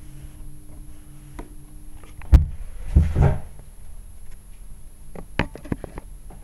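A few sharp knocks and bumps of handling noise, the loudest a little over two seconds in and a smaller cluster later, over a low steady hum.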